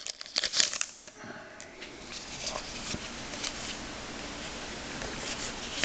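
Crinkling of a foil card-pack wrapper for about a second, then a steady rustle of trading cards being slid and flipped through in the hands.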